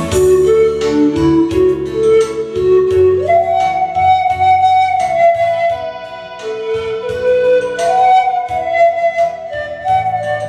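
Pan flute playing a melody of held notes over a backing track with a steady beat.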